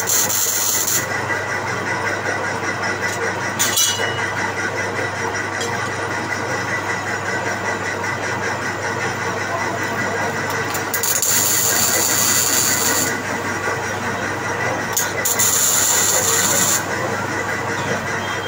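A manual metal-turning lathe running with a steady motor and gearbox hum while a part is turned. A louder, high hissing cutting noise rises for about two seconds roughly eleven seconds in, and again about fifteen seconds in.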